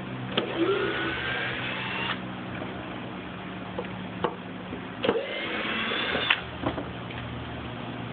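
Cordless drill driving the fasteners of a PVC pool grating bar back in: two runs of the drill motor, each a rising whine lasting one to two seconds, the second about five seconds in, with a few short clicks of the bit and the fasteners between them.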